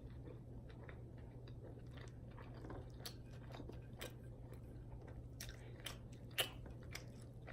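Close-miked chewing and biting of food: soft wet mouth clicks and smacks at uneven intervals, with one sharper click about six seconds in, over a faint steady low hum.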